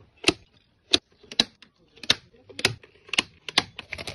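Sharp clicks and snaps of pliers or cutters working at a wooden frame: about eight separate clicks, roughly two a second.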